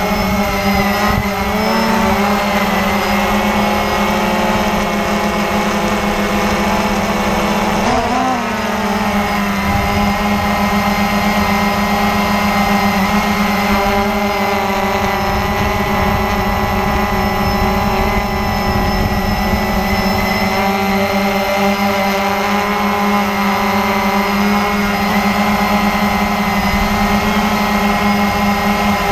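Cheerson CX-20 quadcopter's electric motors and propellers humming steadily, heard from the camera on the drone itself. The pitch wavers briefly about eight seconds in.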